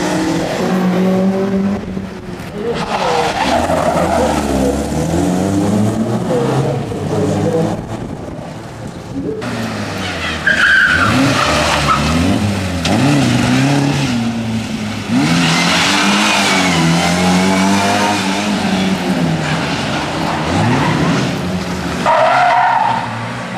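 Historic rally cars going through one after another at full throttle, engines revving high and dropping back through gear changes, with tyres squealing at times in the corners.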